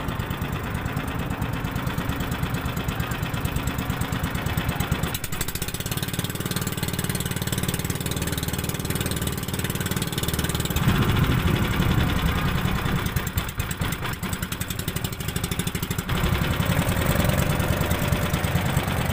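Small boat engine running steadily with a fast, even pulse, getting louder about eleven seconds in.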